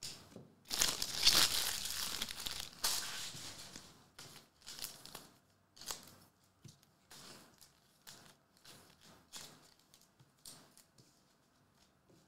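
Foil trading-card pack wrappers crinkling and rustling as they are handled. The rustling is loudest for about three seconds near the start, then breaks into a series of short crinkles.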